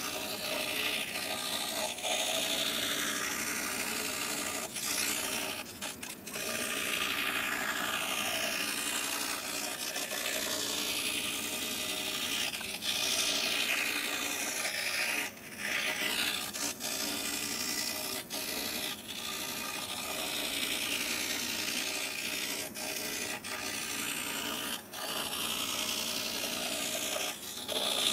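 Scroll saw blade cutting through thin plywood: a continuous rasping saw noise whose tone shifts as the wood is fed and turned along the letter outlines, dipping briefly a few times.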